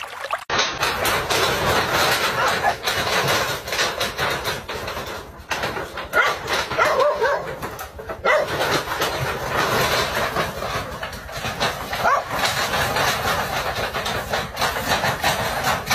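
Dogs barking and yelping as they attack a snake, over a dense clatter and rushing noise, starting abruptly about half a second in.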